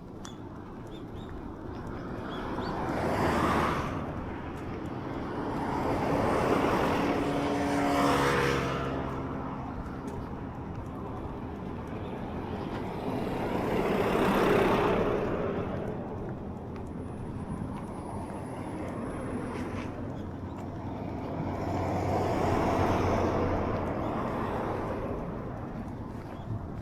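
Road traffic: several vehicles pass one after another, each swelling up and fading away, with an engine hum audible in the one that passes about eight seconds in.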